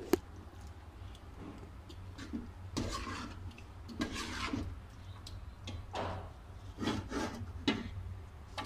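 A large steel cooking pot being handled: one sharp metallic clank right at the start, then a series of short scraping and rubbing sounds of metal against the pot, over a steady low hum.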